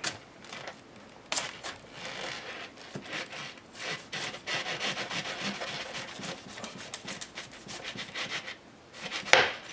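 A knife sawing through the thick, knobbly rind of a whole raw jackfruit: a run of rasping back-and-forth strokes, busiest in the middle stretch, with a louder knock near the end.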